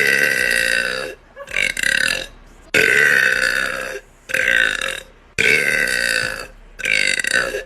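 A woman belching loudly, six burps one after another, alternating long drawn-out ones with shorter ones, each sliding down in pitch.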